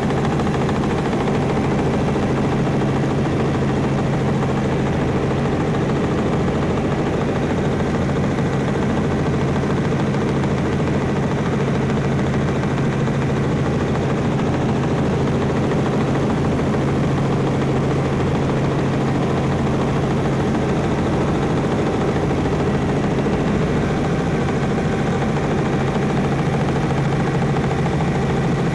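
Helicopter in flight, heard from inside the cabin: a loud, steady drone of engine and rotors with a deep, even hum.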